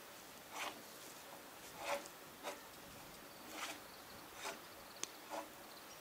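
Footsteps rustling through dry leaf litter and undergrowth, about six steps roughly a second apart, with a single sharp click near the end.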